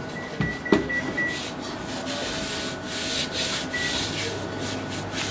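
Dry rubbing and swishing of a wooden rolling pin and hands working over flour-dusted gaz (Persian nougat) slabs in metal trays, with a sharp knock about a second in.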